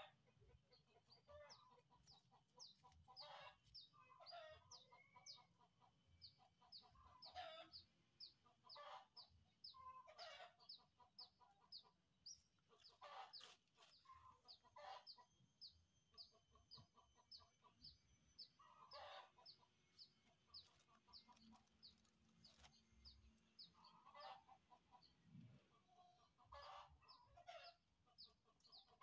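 Faint chickens clucking every few seconds, with a short high chirp repeated about twice a second throughout.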